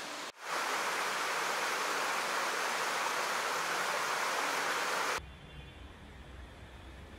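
Shallow mountain stream rushing over rocks, a steady loud rush of water that cuts off suddenly about five seconds in, leaving a quieter background with a low rumble.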